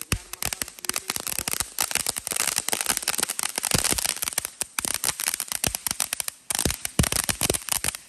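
Blooming flower firework fountain mounted on a remote-control toy boat, burning and spraying sparks with rapid, continuous crackling over a hiss.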